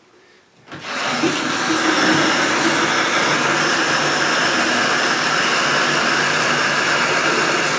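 Bathtub faucet turned on about a second in, running water steadily into a plastic bucket.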